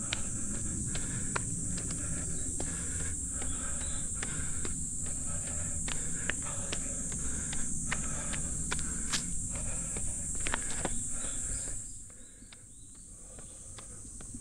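Running footsteps on a dirt trail, about two and a half strides a second, under a steady high drone of summer insects that drops away near the end.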